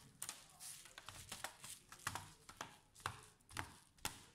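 A Dell laptop's bottom cover being pressed back onto the chassis by hand: a string of short, irregular clicks and snaps, about eight or nine, as the cover's clips seat along its edges.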